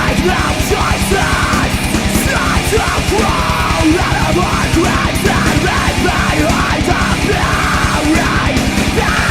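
Heavy metal song: distorted guitars and rapid, even double-kick drumming under harsh, shouted vocals.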